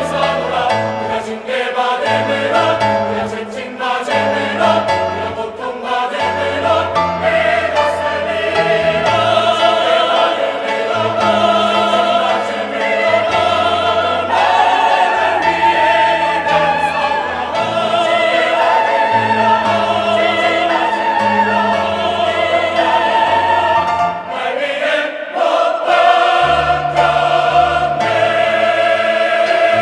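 Choir singing in several voice parts at once, the low and high lines holding long notes and moving together.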